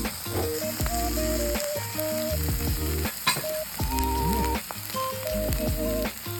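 Light background music, a melody of short stepped notes over a pulsing bass, with a steady crackling hiss underneath.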